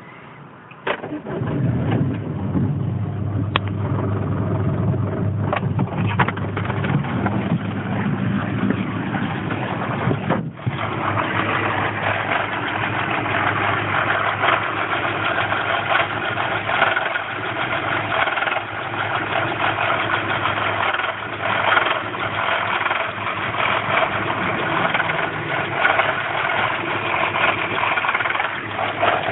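A 2000 Land Rover Freelander's 1.8 K-series four-cylinder petrol engine is started about a second in and then runs unevenly, a symptom of its failing fuel pump starving it of fuel pressure. About ten seconds in the sound dips briefly, then runs on with a brighter, noisier tone.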